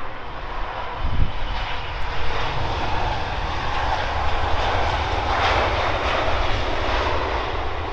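Jet noise from an Airbus A350's Rolls-Royce Trent XWB engines as it comes in to land. It is a continuous rushing roar over a low rumble, swelling to its loudest about five to six seconds in.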